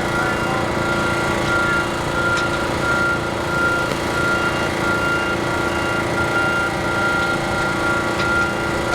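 Snow melter's engine running steadily, with a high tone pulsing about twice a second over it.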